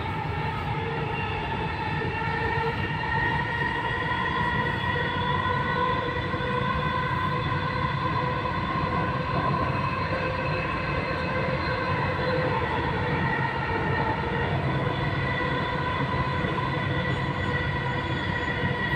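Dubai Metro train running along the track, heard from inside the carriage: a steady rushing rumble with several steady high tones over it.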